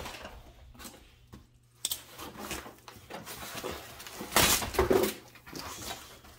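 Foam packing insert and cardboard box being handled and pulled at, giving irregular rustles and a few sharp knocks, with the loudest rustle a little past halfway.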